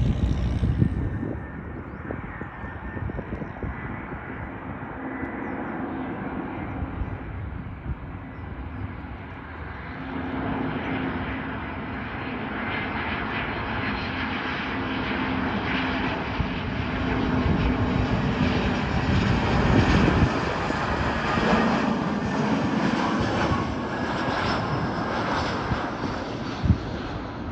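An Airbus A320's jet engines running through a landing: a continuous rushing noise with a steady low hum, growing louder in the second half, and one sharp knock near the end.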